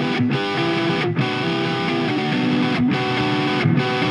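Distorted electric guitar playing a lead line of long held notes through a live concert PA, changing note a few times, with no bass or drums under it.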